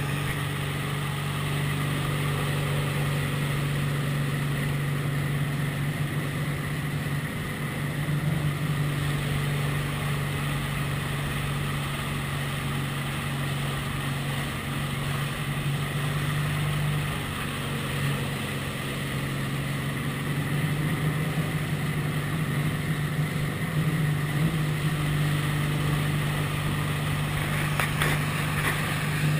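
Speedboat engine running steadily at speed while towing an inflatable ride, a constant low hum over the rush of the wake.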